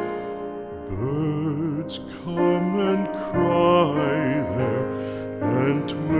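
Slow, tender background music: a melody with vibrato over held lower notes.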